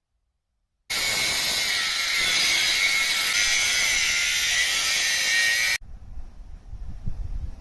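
A power tool grinding steel: a loud, steady, hissing grind with a constant whine in it. It starts suddenly about a second in and cuts off abruptly after about five seconds, followed by a low rumble.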